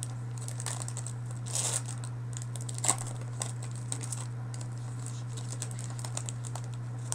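Football trading cards being handled and slid through the hands: scattered small clicks and rustles of card stock, with a sharper snap about three seconds in. A steady low electrical hum runs underneath.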